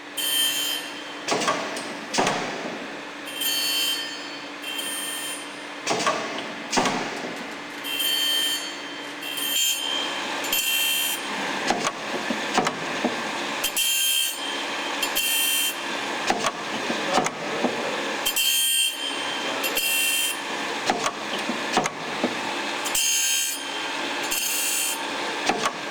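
Loroch CNBS80 CNC bandsaw blade grinder at work: its grinding wheel passes over the saw teeth in repeated short hissing bursts, often in pairs about a second apart, over the steady hum of the running machine.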